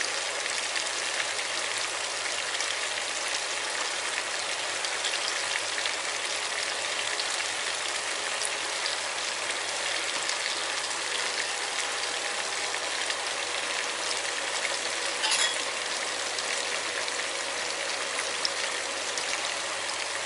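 Coconut-milk red curry simmering in a pan on the stove: a steady bubbling with fine crackles, and one brief louder pop about fifteen seconds in.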